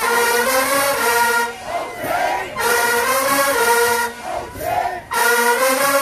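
Marching band brass playing loud held chords in three blasts, each about a second and a half long. In the short gaps between the blasts, voices shout.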